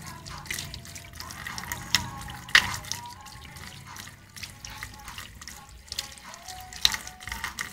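Water running and splashing in a sink as a chick is bathed, with irregular drips and sharper splashes, the loudest about two and a half seconds in and again near the end.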